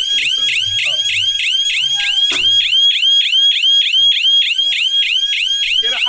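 Security alarm siren sounding loudly: a fast, evenly repeating electronic warble of rising chirps, several a second. A single sharp click comes a little over two seconds in.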